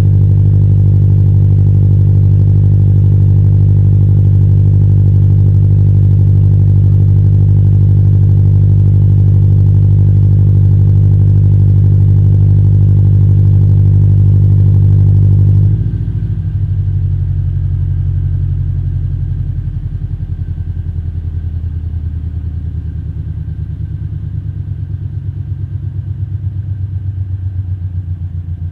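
Exhaust of a Scion FR-S's flat-four boxer engine through an unequal-length header and Invidia N1 cat-back, running at a steady, raised engine speed. About sixteen seconds in the engine speed drops suddenly to a lower, lumpier idle that keeps getting quieter. The owner notes a slight exhaust leak at the flange where the header meets the overpipe.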